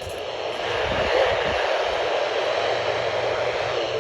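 Radio static: a steady hiss of noise from a weak or unmodulated radio signal, with no alarm tone in it.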